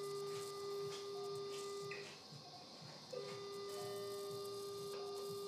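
Electrosurgical unit's activation tone as the monopolar cautery pen cuts tissue: a steady mid-pitched tone that sounds for about two seconds, stops, then comes back about three seconds in for another two seconds or so.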